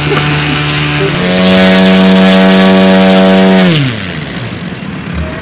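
Large RC tow plane's engine idling, then run up to high revs about a second in and held there steadily for about two and a half seconds before being throttled back, its pitch sliding down and fading.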